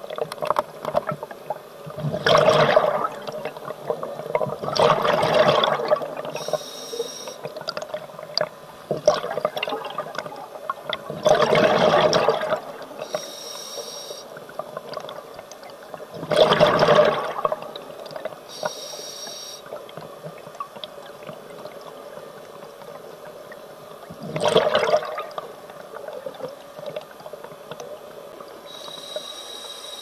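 Scuba diver breathing through a regulator underwater: five or six bubbling exhalations at uneven intervals, each about a second long, with short hissing inhalations between them.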